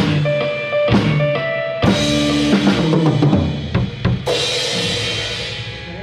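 Drum kit played in time with music that holds sustained pitched notes, with regular drum strokes. About four seconds in it ends on a cymbal crash and held chord that ring out and fade.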